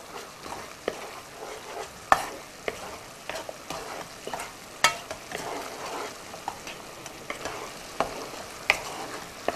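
Syrup of corn syrup and sugar bubbling at the boil in a nonstick pan while a wooden spatula stirs it, with sharp taps and scrapes of the spatula against the pan scattered through.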